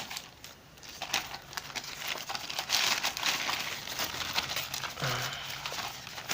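Parcel packaging crinkling and rustling as it is pulled open by hand, irregular, with a few sharp crackles.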